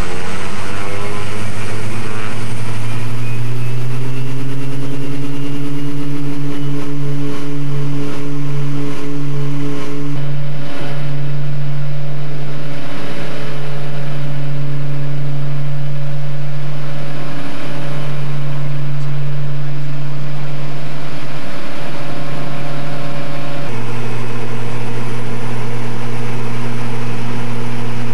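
Light aircraft's propeller engines heard from inside the cabin, rising in pitch over the first few seconds as power comes up for the takeoff run, then a loud steady drone. About 24 s in the pitch steps down, as power is reduced for the climb.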